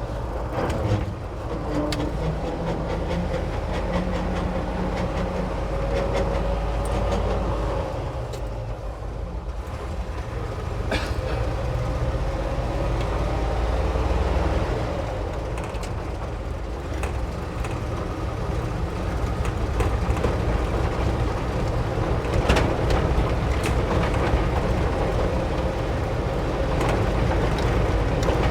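Ford F600 truck driving, heard from inside the cab: a steady engine and road drone with a wavering whine, and scattered rattles and knocks from the body over a rough road.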